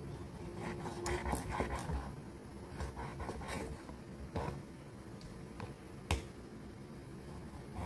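Large kitchen knife cutting through fatty pork and knocking on a wooden chopping board: irregular short knocks, the sharpest about six seconds in.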